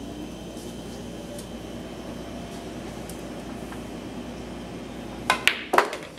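Pool shot: near the end, three sharp clicks come within about half a second, as the cue tip strikes the cue ball and the billiard balls click together. A steady room hum runs underneath.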